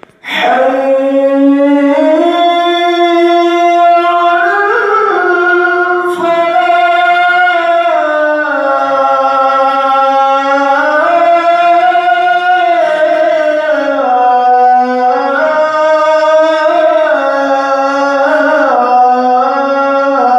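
A man's voice calling the adhan, the Islamic call to prayer. It begins a fraction of a second in and holds one long melodic phrase without a break, with ornamented rises and falls in pitch.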